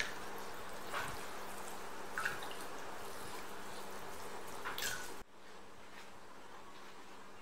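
A thin stream of water pouring into a glass bowl of dried rice noodles, a steady trickle with a few splashy drips. It cuts off abruptly about five seconds in, leaving a faint steady hiss.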